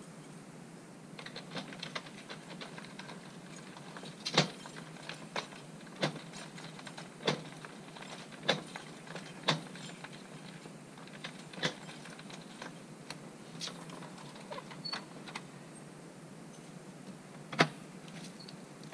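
Keys jangling and a door lock being worked: a string of sharp metallic clicks, then a louder clack near the end as the wooden door is opened.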